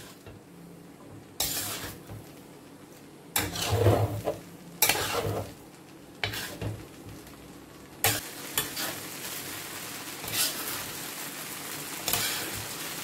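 A metal spatula scrapes and clatters against a large stainless-steel pan while stir-frying rice vermicelli, and the noodles sizzle underneath. The strokes come in separate bouts, the loudest knock about four seconds in. From about eight seconds in, the sizzling and scraping become steadier.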